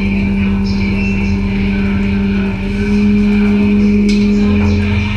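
Fishing boat's engine and hydraulic pot hauler running with a steady drone while a string of pots is hauled, stepping up slightly in pitch and loudness about three seconds in.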